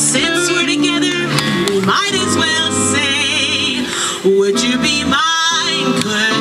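Live acoustic band music: guitar with singing and a wavering high melody line over sustained notes.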